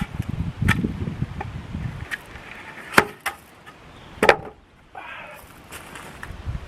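Sharp knocks of wooden boards, two loud ones about three and four seconds in with lighter clicks around them. Wind rumbles on the microphone in the first two seconds.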